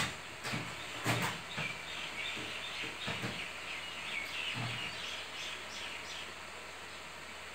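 A bird giving a quick run of short, falling chirps for a few seconds, with a few knocks or thumps near the start, over a steady background hiss.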